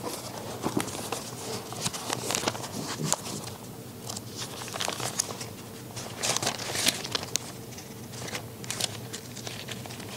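Thin Bible pages being leafed through and turned: a run of short, irregular crinkling rustles.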